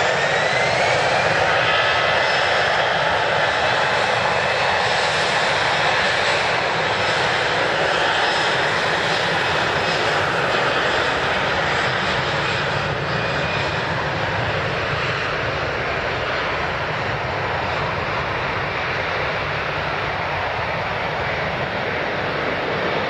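Jet airliner engines running loud and steady, with a high whine that rises in pitch in the first couple of seconds. The sound eases off slightly in the second half.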